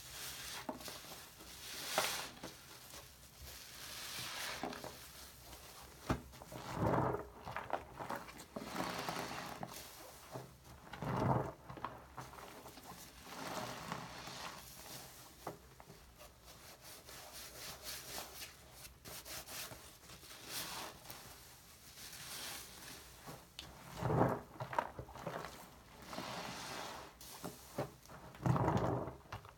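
A foam bath sponge loaded with shaving-cream lather, squeezed and rubbed by hand in a sink of soapy water: wet squishing and crackling foam, with several louder squelches.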